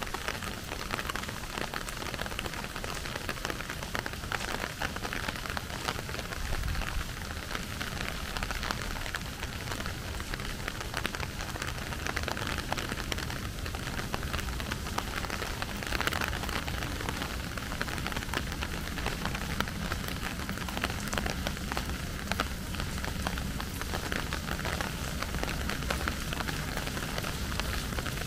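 Steady rain falling, with a dense patter of drops striking hard surfaces and a low, steady rumble beneath.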